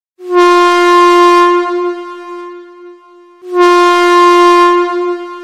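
Train air horn sounded twice on one steady note: two identical long blasts about three seconds apart, each loud at first and then fading out.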